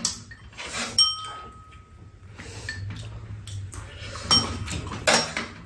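Metal spoon clinking against bowls while eating: several sharp clinks, two of them, about a second in and again past four seconds, ringing briefly.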